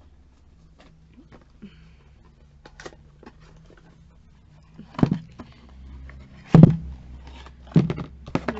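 Cardboard packaging being handled by hand: a few knocks and thumps with light rustling, the loudest about five and six and a half seconds in, over a faint low hum.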